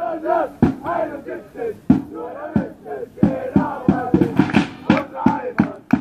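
Group of football supporters chanting a sung chant in unison, with sharp beats falling several times a second under the singing.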